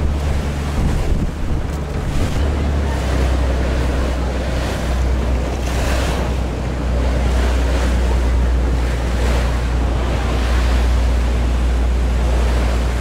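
Wind buffeting the microphone and sea water rushing and splashing against the hull of a small motor boat under way in choppy water, over a steady low rumble. The wash surges as the boat rocks, strongest about six seconds in.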